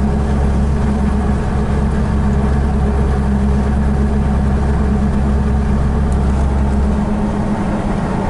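Car engine idling, heard from inside the cabin: a steady low hum whose deepest part drops away about seven seconds in.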